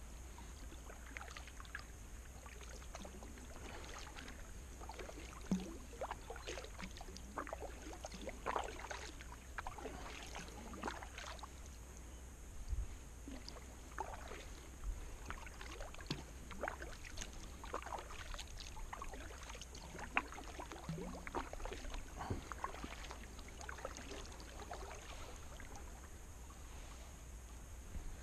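Kayak paddle strokes: the blades dipping in and lifting out of calm water, giving an irregular run of small splashes and drips about once a second, over a steady low rumble.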